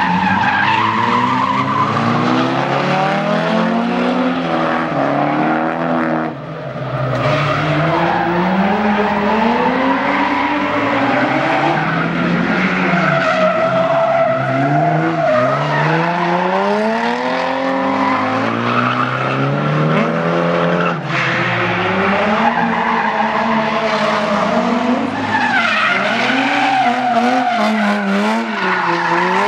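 Nissan 350Z and Silvia S14 drift cars sliding, their engines revving up and down over and over, with tyres squealing.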